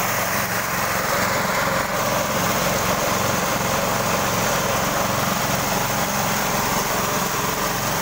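Homemade sawmill running steadily: an engine's even drone with a constant mechanical noise over it.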